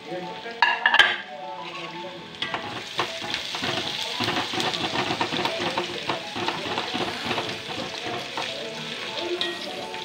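Shallots and garlic sizzling in hot coconut oil in an aluminium kadai while a metal ladle stirs and scrapes against the pan, with many quick clicks, during the tempering stage of a sambar. A short loud burst about a second in is the loudest moment.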